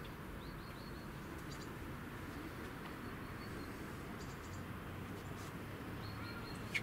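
Steady distant city background hum with a few faint, short, high bird chirps scattered through it, and a brief sharp click near the end.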